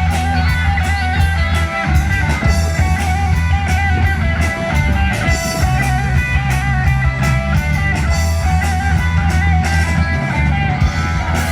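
Rock band playing: an electric guitar melody over bass guitar and a drum kit.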